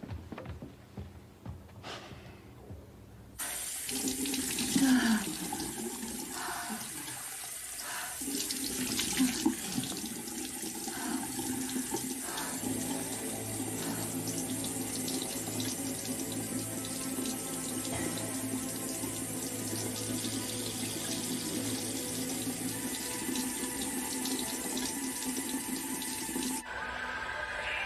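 Water tap running into a sink, splashing as a face is washed. The water comes on a few seconds in, runs steadily, and stops suddenly near the end.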